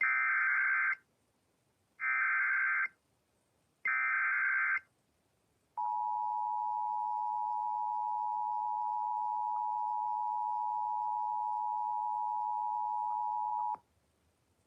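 Emergency Alert System SAME header: three bursts of warbling digital data tones, each about a second long. Then comes the EAS two-tone attention signal, two steady tones sounded together for about eight seconds, which cuts off abruptly. This sequence signals an incoming emergency warning broadcast.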